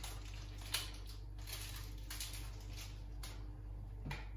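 Faint handling of small plastic parts: a few light clicks and rustles, the sharpest about three-quarters of a second in, as a jet tip is fitted onto a cordless water flosser.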